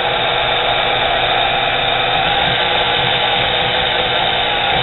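Nano lathe headstock spinning on its belt drive from a 0.2 hp spindle motor. It gives a steady whirring hum with a rough, growly edge, which the owner puts down to the motor rather than the spindle bearings.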